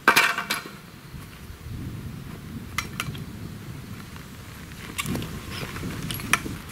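Tent pole and fabric being handled while a tunnel tent is taken down: a loud clattering rustle just at the start, then a few scattered light clicks and knocks.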